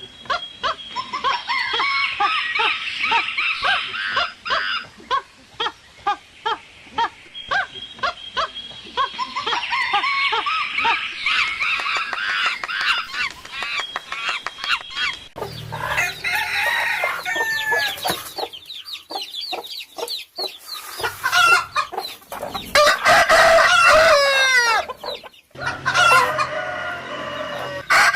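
Chickens calling: hens clucking and roosters crowing, with a dense run of rapid clucks in the first half. After that the calls come in short segments that cut off abruptly every few seconds.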